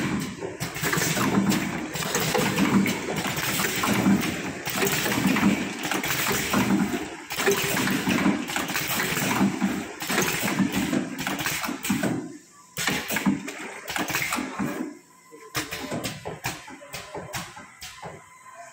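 ZHGS 2021N servo tracking bottle filling machine running, a steady rushing noise of machinery and liquid being filled. About twelve seconds in it thins to scattered clicks and knocks.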